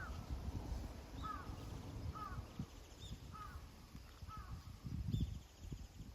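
A bird calling five times, about a second apart, with fainter higher bird calls behind, over wind rumbling on the microphone.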